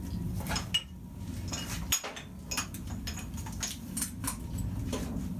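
Wiring loom being pulled out through a motorcycle frame: connectors and wires clicking and clinking against the frame in a run of irregular light knocks, over a low steady hum.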